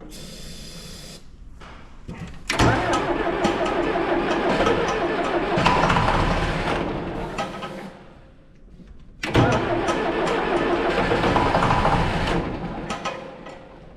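Starter cranking the diesel engine of an early John Deere 710 backhoe in two long bursts, the first about five seconds and the second about three, without the engine catching. The engine is not getting fuel to its injectors, which the owner puts down to the injection pump.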